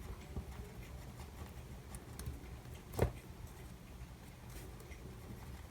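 Faint small scrapes and ticks of a correction pen being worked over a paper sticker, with one sharper tap about three seconds in, over a low steady room hum.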